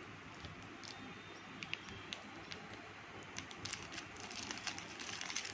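Shiny chocolate-roll wrapper crinkling as it is handled: a few scattered clicks, then from about three and a half seconds in a dense run of crackles.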